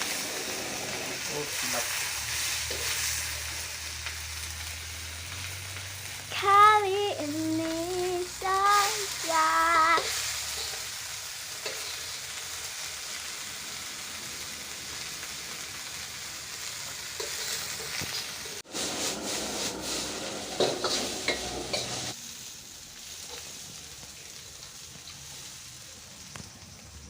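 Food sizzling as it fries in hot oil, with stirring. The sizzle is a steady hiss.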